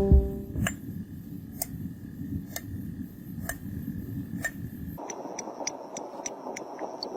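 Regular light ticks, about one a second, each with a faint ring, over a low hiss. About five seconds in, this cuts abruptly to quicker, higher-pitched ticks.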